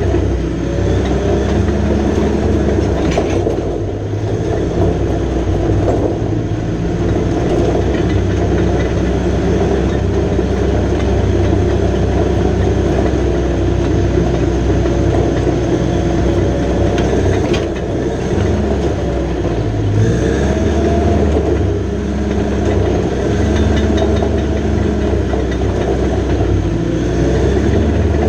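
John Deere 450J LT crawler dozer's diesel engine running steadily, with its pitch rising and falling several times as the load changes, over a continuous clatter from the machine.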